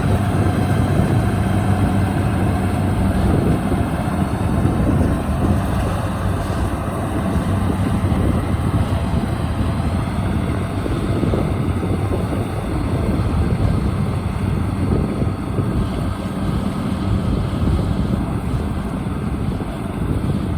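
Diesel engine of a Kubota DC-73 rice combine harvester running steadily with an even, unchanging drone while it works a muddy rice field.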